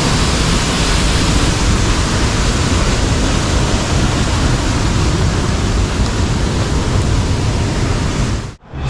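Waterfall rushing, a loud, steady noise of falling water that cuts off suddenly near the end.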